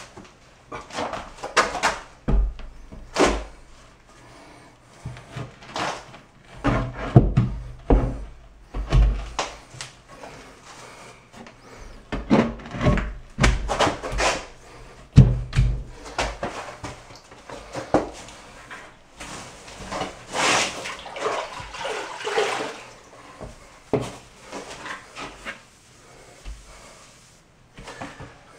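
A marble slab being set onto a thinset-covered shower bench seat and pressed into place by hand: a run of irregular knocks and dull thumps, with a few seconds of rubbing noise about twenty seconds in.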